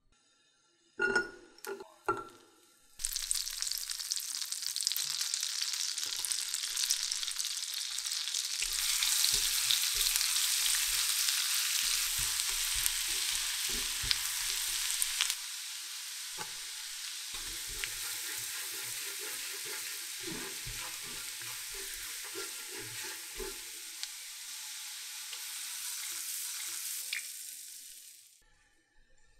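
Minced garlic sizzling in melted butter in a frying pan while it is stirred. It starts after a few knocks about a second in, grows quieter about halfway through, and fades out near the end.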